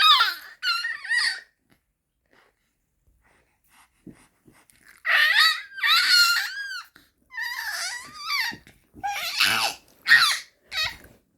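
Baby making high-pitched whale-like squeals in short bursts, the pitch arching up and down. A few squeals at the start, a pause of about three seconds, then a longer run of squeals.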